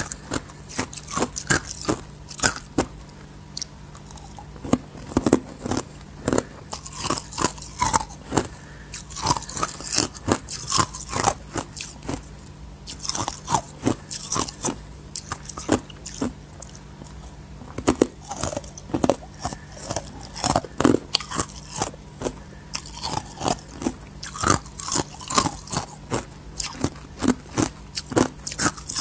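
Hard ice pieces dusted in matcha powder being bitten and crunched between the teeth. Irregular runs of sharp cracks and crunches and chewing go on all through, over a faint steady low hum.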